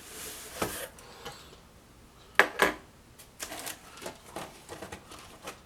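Packaging being handled and opened by hand: rustling, then a scatter of small clicks and taps, with two sharper clicks about two and a half seconds in.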